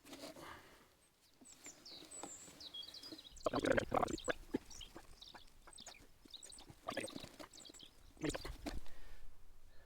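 Sewer pipe fittings being worked apart by hand: irregular bursts of scraping and knocking, loudest about three and a half seconds in and again near the end, with birds chirping in the background.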